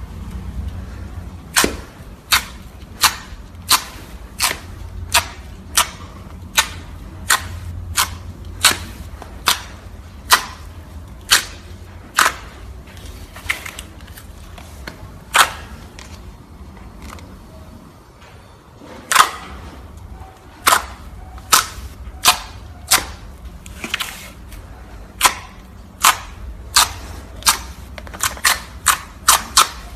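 Slime being pressed and squeezed by hand, giving a series of sharp pops and clicks about one to two a second, with a pause of a few seconds around the middle.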